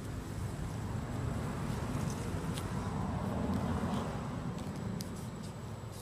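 Low rumble of distant road traffic, swelling about halfway through and easing toward the end, with a few faint clicks.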